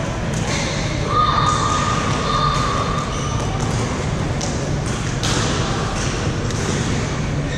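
Badminton hall ambience: a steady murmur and rumble of a busy hall, with scattered sharp hits and thuds from play on the courts. A high squeak is held for about a second and a half, starting about a second in.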